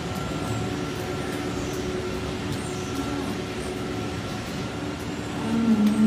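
Steady mechanical hum of farm machinery with a few faint steady tones. A cow starts a drawn-out moo near the end.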